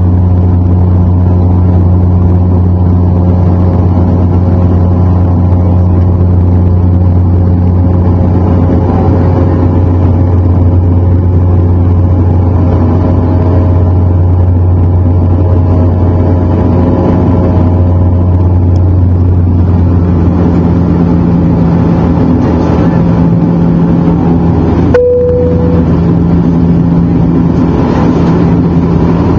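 Turboprop airliner cabin noise heard from a seat beside the propeller: the engines and propellers drone steadily with a deep, even hum. About 25 seconds in, a click and a short single tone sound over it.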